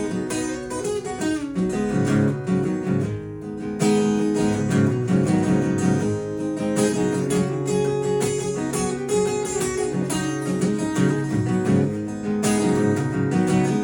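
Acoustic guitar strummed and picked, with no singing.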